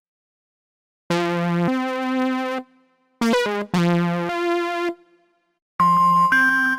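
Roland System-100 software synthesizer playing buzzy, overtone-rich held notes after about a second of silence, broken by a quick run of rising notes. Near the end a brighter, denser passage comes in with a high steady tone on top.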